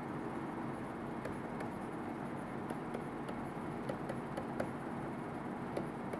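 Steady hiss and low hum of room noise, with a few faint, light clicks of a stylus writing on a tablet screen.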